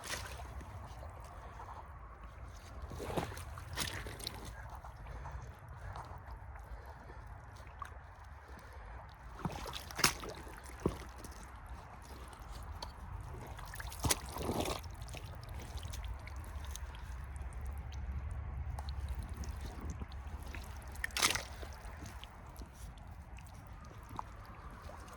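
Muck Arctic rubber boots sloshing and squelching in wet peat bog mud, with a handful of sharper squelches spread through, over a steady low rumble.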